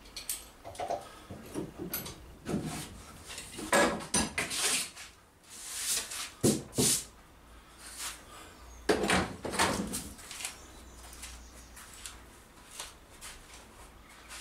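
Metal bar clamps being loosened and lifted off a glued plywood boat foredeck, clanking and knocking as they are handled, with wooden battens clattering. The knocks come in irregular clusters and thin out after about ten seconds.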